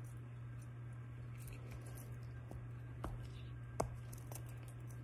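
A few faint, short clicks as the bubbles of a small silicone triple-dimple popper fidget are pushed in with the fingers, the two clearest a little after three seconds in, over a steady low hum.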